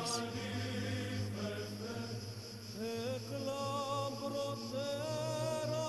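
Background music: an unaccompanied chanted hymn, one voice line holding long notes and moving in small steps and glides over a steady low drone.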